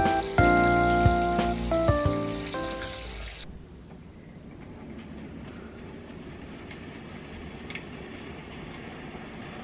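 Background music with clear, held melody notes over the rushing of water pouring from a bath spout into a full tub. The music stops about three and a half seconds in, leaving a steady, quieter hiss.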